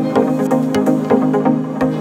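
Electronic background music with sustained synth notes over a steady beat.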